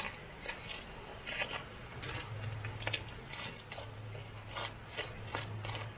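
Irregular hard clacks and knocks of stones being set against one another while a stone fire pit is built, a dozen or so sharp strikes in a few seconds, over a steady low hum.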